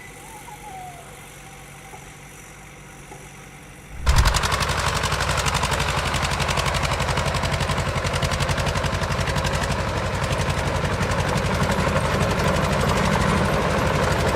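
Quiet background, then about four seconds in an engine comes in suddenly and loud, running steadily with a fast, even chugging pulse.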